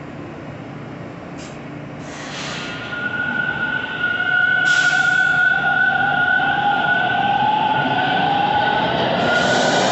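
TTC subway train pulling out of the station, its traction motors whining: a steady high tone and a lower tone that rises in pitch as the train speeds up, getting louder from about three seconds in. A few short hisses of air come before and during the start.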